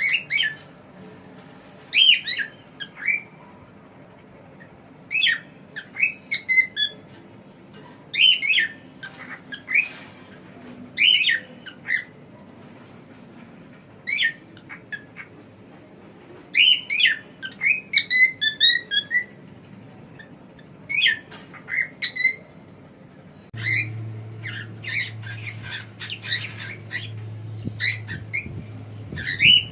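Cockatiel whistling and squawking in short bursts of quick, sweeping chirps, repeated every second or few. A steady low hum comes in about three-quarters of the way through.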